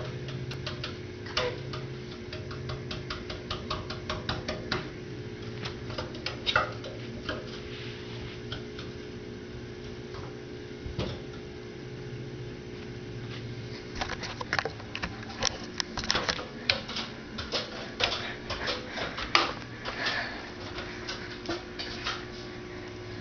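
Light, irregular clicks and taps of a cat's claws and paws on an aluminium stepladder as it climbs. They come in clusters through the first seven seconds, thin out, then come thicker again from about fourteen seconds, over a steady low hum.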